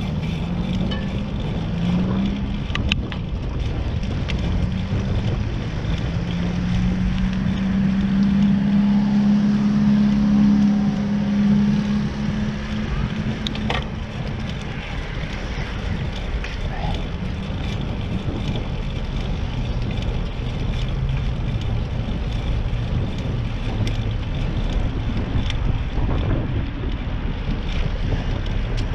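Wind rumbling on the microphone of a camera riding on a moving bicycle, with road noise underneath. A passing vehicle's hum swells and fades again roughly halfway through.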